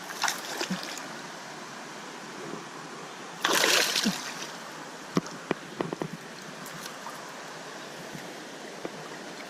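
Small creek running steadily. About three and a half seconds in comes a loud splash, a hooked bass thrashing at the surface as it is reeled in, followed by a few sharp clicks and taps.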